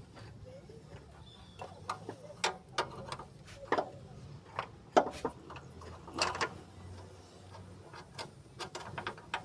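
Irregular metallic clicks and knocks of car parts being handled and fitted into place by hand, the loudest about halfway through, over a faint steady low hum.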